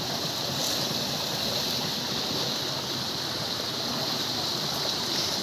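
Steady rushing of flowing river water, an even hiss with no separate splashes.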